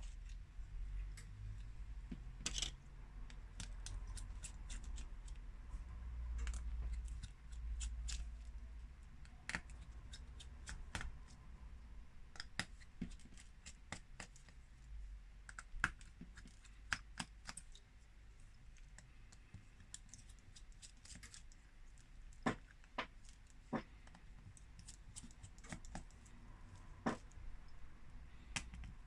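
Scattered small clicks and taps of repair tools working on a smartphone's internals at irregular intervals, over a low steady hum.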